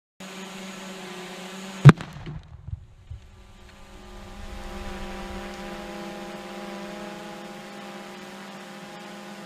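One very loud Tannerite explosion about two seconds in, followed by a low rumbling echo for about a second, over a steady low hum.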